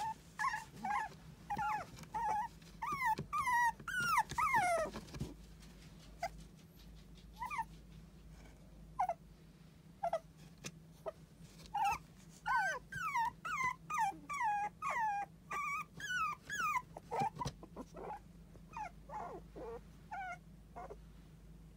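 Toy poodle puppies whining and whimpering in short, high calls that bend in pitch, in two dense runs: one over the first five seconds and one in the middle, with scattered single whines between and after. They are whining to get out of their box.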